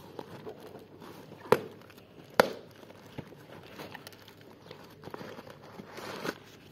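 Cardboard parcel being pried and torn open by hand: rustling and tearing of packing tape and cardboard, with two sharp snaps about a second apart, the first about a second and a half in. Crinkling of newspaper packing comes near the end.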